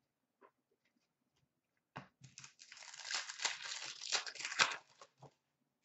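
A trading card pack's wrapper being torn open and crinkled by hand: a short rip about two seconds in, then about two seconds of steady crinkling that stops near the end.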